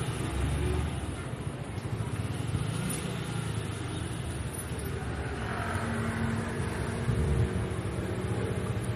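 Street ambience: a steady low rumble of passing road traffic.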